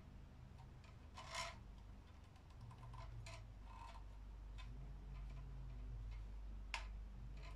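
Faint plastic clicks and rubbing from a ring light being handled and fitted onto the mount of its tripod stand, with a sharp click near the end, over a low steady hum.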